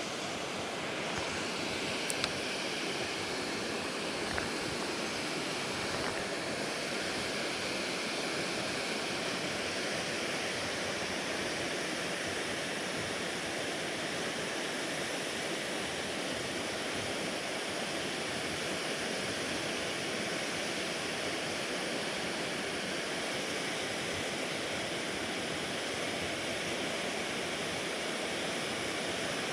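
Steady rushing of water pouring through a large dam spillway, an even, unbroken wash of noise. A couple of faint clicks in the first few seconds.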